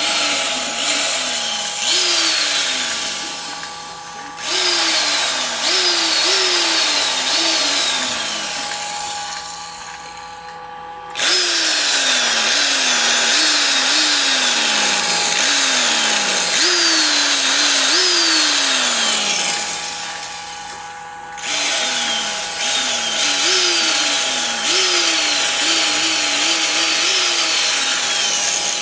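Porter-Cable 2610 corded electric drill running, its trigger squeezed and eased over and over so the motor whine spins up quickly and then slowly winds down, again and again. A few times it winds down much further before being squeezed up to speed again.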